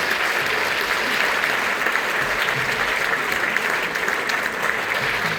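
Audience applauding steadily: a dense patter of clapping hands after a live song.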